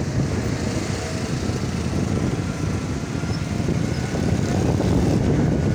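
A vehicle engine running steadily with street traffic noise, a dense low rumble.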